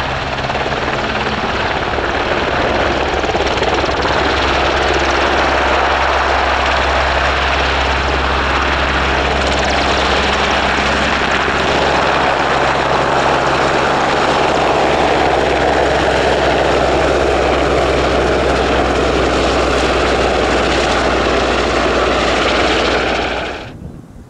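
Royal Navy AgustaWestland Merlin helicopter, with three turboshaft engines, running steadily during its take-off: constant rotor and turbine noise with a low steady hum. The sound cuts off suddenly near the end.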